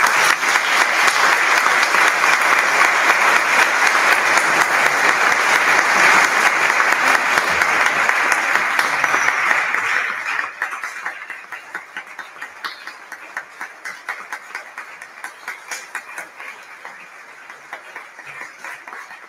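A large audience applauding: loud, dense applause for about ten seconds, then thinning to scattered claps that die away near the end.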